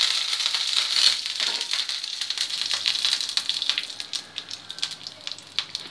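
Mustard seeds popping and curry leaves sizzling in hot oil, a tempering: a dense crackle with hiss that thins out to scattered pops after about four seconds.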